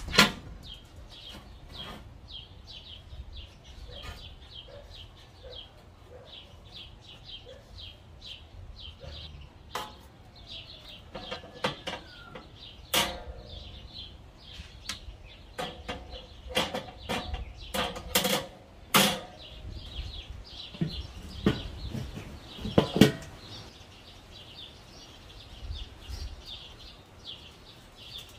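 Small birds chirping in the background, with scattered sharp metal clanks and knocks of grill parts being handled on a Weber kettle grill: the cooking grate and lid being set in place. The loudest knocks come in the second half.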